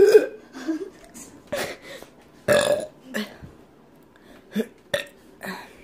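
A person burping: a long, loud burp right at the start. Several shorter bursts of sound follow over the next few seconds.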